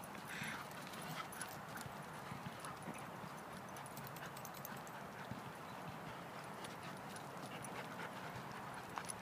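Dogs' paws running and scuffing over wood-chip mulch as they chase and play, heard as many small irregular ticks and crunches over a steady outdoor hiss.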